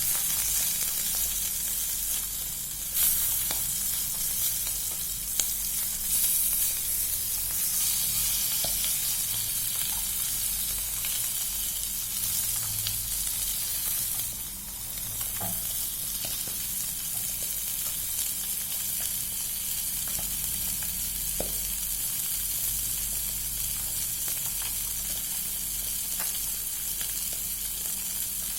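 Food deep-frying in hot oil: a steady, high sizzling hiss, with a few sharp clicks scattered through it.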